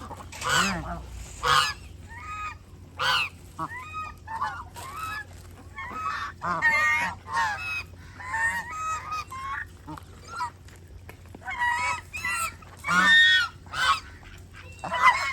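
A group of farmyard waterfowl calling over and over: many short honking calls, irregular and sometimes overlapping.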